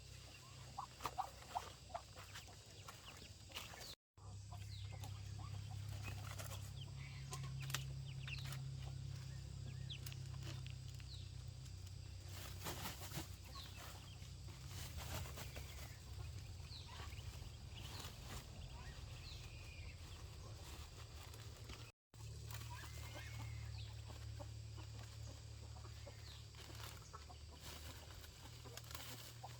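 Chickens clucking and chicks peeping in short, high, falling chirps, over a steady low hum.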